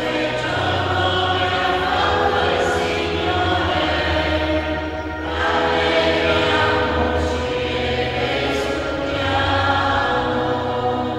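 Church choir singing slowly in long held phrases over steady low accompanying notes, with short breaks between phrases about five and nine seconds in. This is the sung responsorial psalm between the Mass readings.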